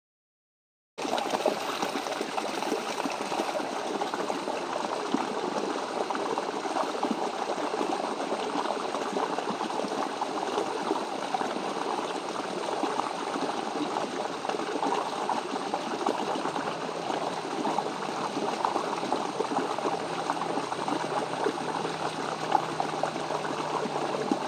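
Shallow ditch water flowing and rippling steadily, starting about a second in.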